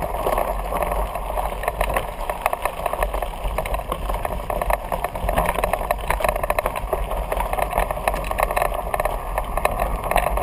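Mountain bike riding fast down a loose gravel and rock trail: steady crunching of tyres on gravel with dense irregular rattling and clicking as the bike runs over stones.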